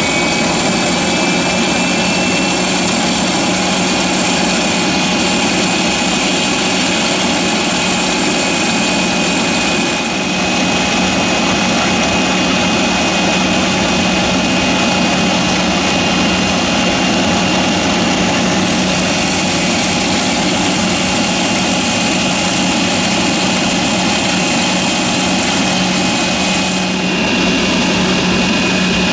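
Turbofan engines of an Embraer ERJ-145 regional jet (Rolls-Royce AE 3007) running with a steady high whine over a continuous jet rush. The whine rises slightly in the first couple of seconds, then holds.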